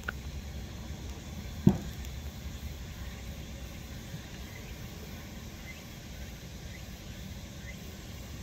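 Outdoor ambience with a steady low rumble and one sharp knock a little under two seconds in. Faint short insect chirps come about once a second in the second half.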